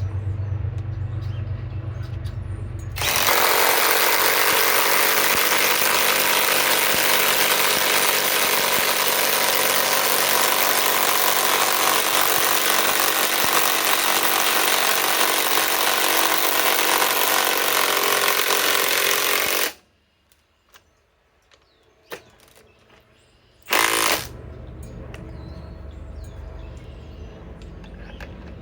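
Cordless compact impact wrench hammering steadily for about sixteen seconds, then stopping abruptly. A few seconds later comes one short half-second burst of hammering. A low hum runs before and after.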